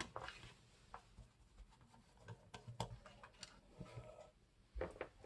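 Faint, scattered clicks and light ticks of a Torx screwdriver working screws out of a plastic electric shower unit.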